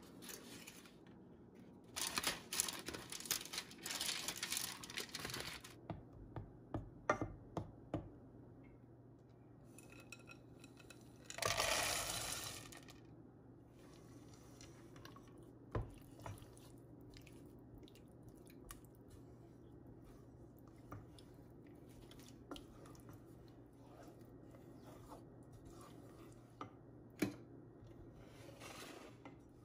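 Kitchen handling sounds. Aluminium foil crinkles in bursts in the first few seconds, and a louder rustle comes about twelve seconds in. After that a wooden spoon stirs melting chocolate chips and butter in a saucepan, with occasional light taps against the pan over a low steady hum.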